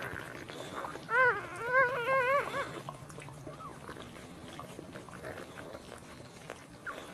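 Newborn puppy squealing as its mother licks it, a quick run of high, wavering cries about a second in, then a few faint squeaks.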